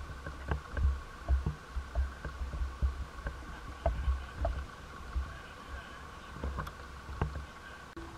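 Footsteps thudding on a wooden dock, about two a second, over a steady faint hum, with scattered light clicks and knocks.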